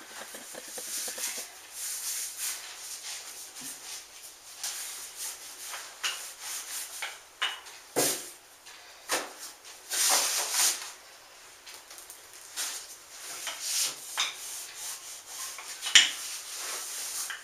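Wooden rolling pin and hands working a piece of yeast dough on a floured table: irregular rubbing and scraping strokes, with a few sharp knocks, the loudest about sixteen seconds in.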